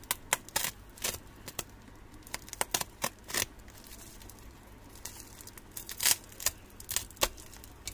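Utility knife slicing open a plastic mailer lined with bubble wrap: a run of sharp crackles and snaps as the blade cuts and the plastic crinkles, pausing for a couple of seconds midway.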